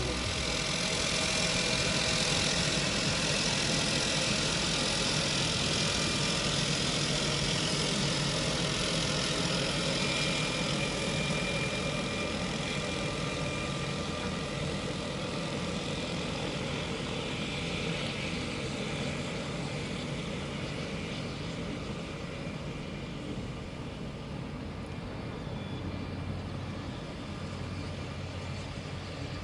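An engine running steadily, slowly growing quieter.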